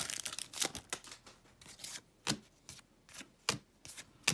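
Upper Deck hockey trading cards being pulled from a torn foil pack and flicked through by hand: a brief rustle of the wrapper at the start, then a series of short, sharp card snaps spaced about half a second to a second apart.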